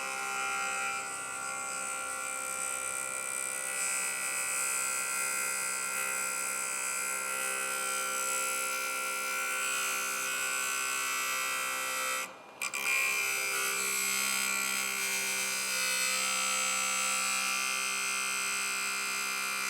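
Electric sharpening tool's motor running at full speed while a pocket knife's steel edge is ground on a spinning 35-micron 3M Trizact abrasive disc: a steady whine with a grinding hiss over it. It cuts out for a moment about twelve seconds in.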